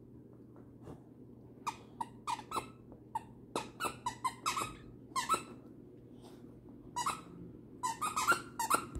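Beagle chewing a squeaky toy, setting off a quick, irregular string of short squeaks that starts about two seconds in, breaks off briefly past the middle, and bunches up again near the end.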